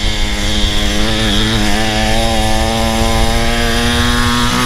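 Small engine of a cheap $200 pit bike running at high, steady revs, its pitch wavering slightly before settling.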